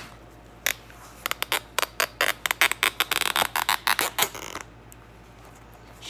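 A run of sharp plastic clicks, a few at first and then coming quickly between about two and four and a half seconds in: a zip tie being ratcheted tight.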